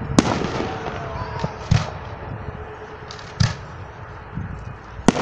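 Aerial fireworks shells launching and bursting: four sharp bangs about a second and a half apart, with smaller pops between them.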